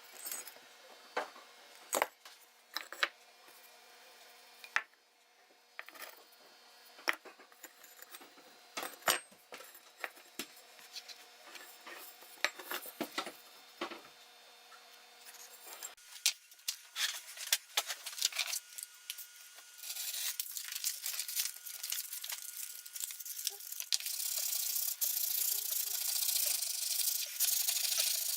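Metal parts of an old hand plane clicking and knocking as they are handled, then, from about 20 seconds in, steady scratchy abrasive rubbing as rust is scrubbed off.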